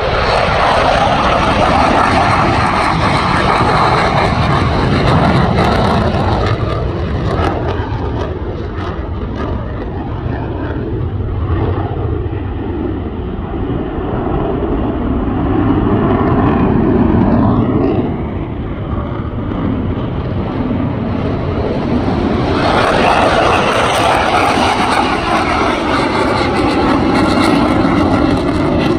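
Jet noise from an F-22 Raptor's twin Pratt & Whitney F119 turbofans as the fighter flies past and maneuvers overhead. The noise is loud at first, eases through the middle and swells again near the end as the jet comes round.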